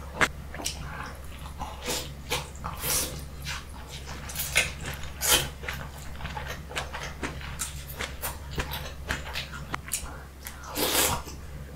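Close-miked eating sounds: wet slurping, sucking and lip smacks as sauce-drenched king crab leg meat is sucked from the shell and chewed, in a quick run of short smacks with a longer, louder slurp near the end.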